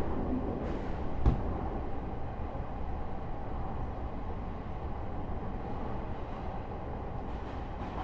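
JR East E129-series electric train car (KuMoHa E128) running along the line: a steady rumble of wheels on rail, with one sharp knock about a second in.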